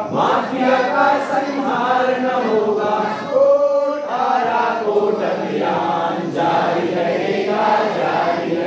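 A group of mostly male voices singing a song together from song sheets, with no instruments.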